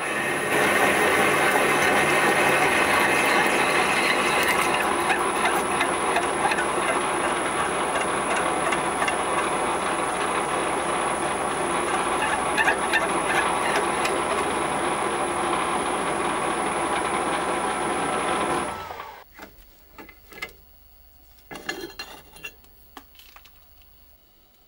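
TV-7M school lathe running with a twist drill cutting a pilot hole through a steel angle: a steady grinding cut noise with a thin high whine over it. The machine stops sharply about three-quarters of the way through, followed by a few light clicks as the part is handled.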